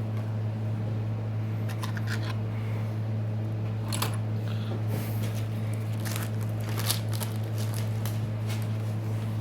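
Light clicks and scrapes of small tools and broken display glass being handled and cleared off the work surface, over a steady low hum.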